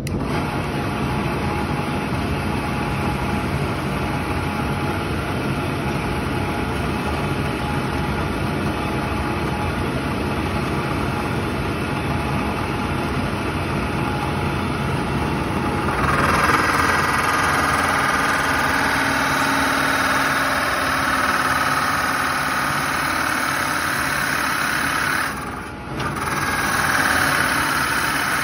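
Drill press running with a large Forstner-style bit boring into the end of a small round block of wood. The cutting sound turns louder and harsher about halfway through, drops away briefly for about half a second near the end, then picks up again.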